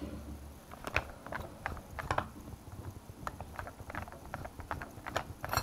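Irregular light clicks and taps of small carburetor parts being handled: the screws, plastic diaphragm tops and fittings of a motorcycle carburetor being taken off and set down in a parts box.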